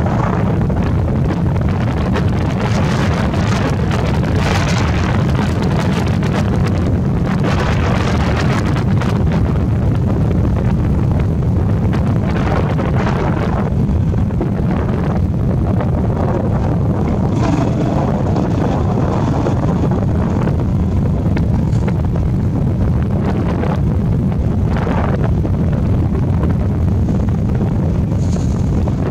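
Motorbike engine running steadily while riding, under a loud low rumble of wind buffeting the microphone. The wind rush swells and fades every few seconds.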